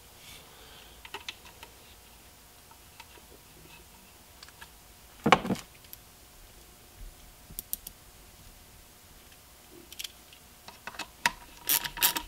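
Small clicks and taps of plastic and metal as a headlight projector assembly is handled and its adjustment screw is fitted back in with a screwdriver. There is one louder knock about five seconds in, and a quick run of sharp clicks near the end.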